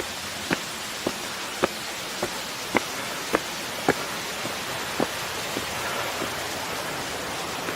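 Footsteps walking at a steady pace, about two sharp taps a second on a hard path, fading out after about five seconds, over a steady watery hiss.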